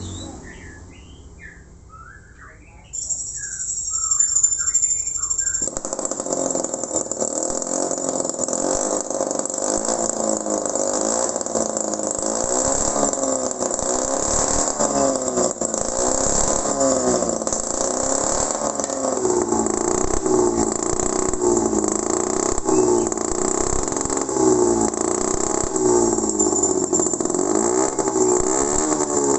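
Small homemade two-stroke engine built from a refrigerator compressor, starting up: a high whine begins about three seconds in, and about six seconds in the engine catches and keeps running, its speed rising and falling. Birds chirp before it starts.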